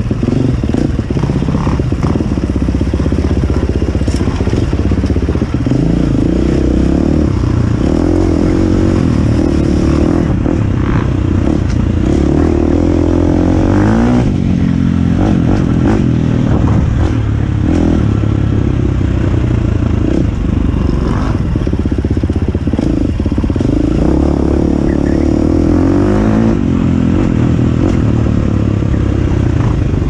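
KTM dirt bike engine running under a rider's throttle, its pitch rising and falling as he accelerates and eases off, heard close up from on the bike. Occasional knocks from the bike over rocks.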